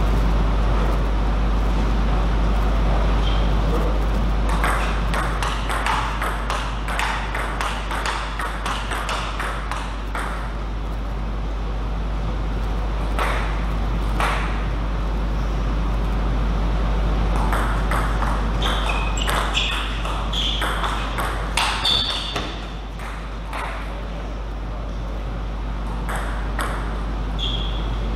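Table tennis ball clicking off paddles and the table in runs of quick strokes, with pauses between points. A few short high squeaks come in the middle, over a steady low hum.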